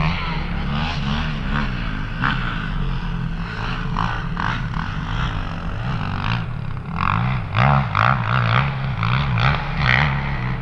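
Motocross bike engine being ridden hard, its pitch rising and falling again and again as the rider opens and closes the throttle through the gears.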